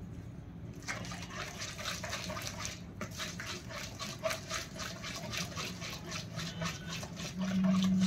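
A hand squishing and kneading ghee and vegetable shortening in a plastic mixing bowl, working the fats soft: wet squelching strokes at about four a second, starting about a second in. A steady low hum swells louder near the end.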